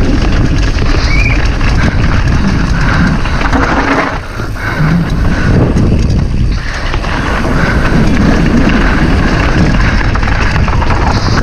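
Loud wind rushing over the microphone with the rumble and rattle of a downhill mountain bike running over rough trail, dipping briefly about four and six and a half seconds in.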